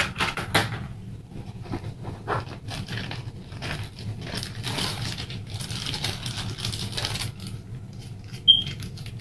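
Plastic packaging crinkling and rustling as items are rummaged through and a small clear plastic bag of Lego bricks is lifted out, with a short high squeak near the end.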